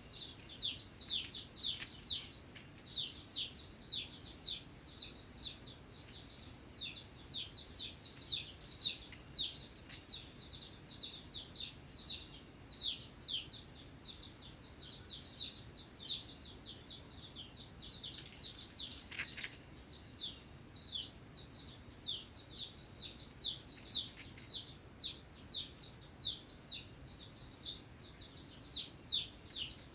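Small songbirds chirping continuously: a fast series of short, high, downward-sweeping chirps, two or three a second. A sharp click stands out about two-thirds of the way through.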